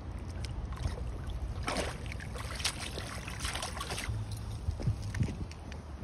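Newfoundland dog wading through shallow lake water, its legs splashing in a run of splashes about two to four seconds in, as it heads out to swim.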